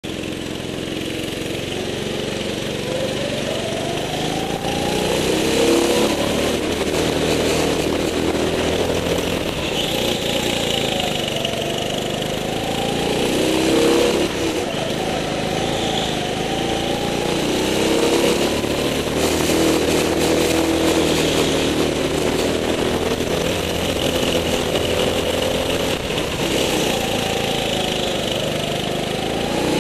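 Go-kart engine heard from on board, running continuously with its pitch rising and falling every few seconds as the kart accelerates out of and lifts into the corners.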